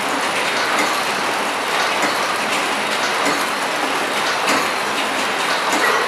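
Horizontal flow wrapping machine running, a steady mechanical clatter with light rapid clicking.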